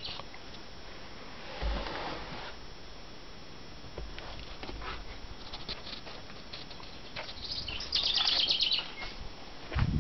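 Camera handling rustles and light knocks over a low background; about eight seconds in, a songbird sings a short rapid trill of high repeated notes.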